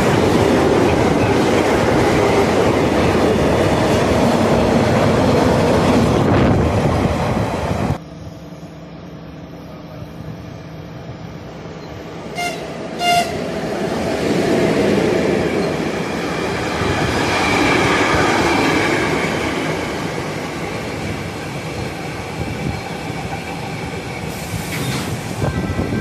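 Freight trains passing through a station: a car-carrier train's wagons rush by close with a loud, even rolling noise. After a cut about 8 s in, two short horn toots sound from an electric freight locomotive, and its train rolls past with wheel rumble and some wheel squeal.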